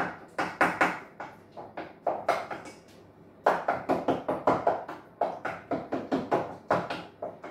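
Wooden spoon knocking against the sides of a metal pan as food is stirred and mashed in it: a quick run of knocks, about four a second, with a short pause about three seconds in.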